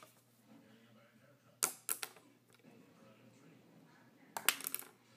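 A paintbrush tossed at a small glass bottle, landing with hard knocks and clatter: two quick knocks about a second and a half in, then a short rattling run of clacks near the end.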